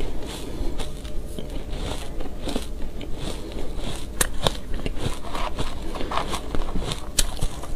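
Close-miked chewing of shaved ice topped with matcha powder: a dense run of small crackles and crisp crunches as the ice is bitten and ground, with a few sharper snaps about halfway through and near the end.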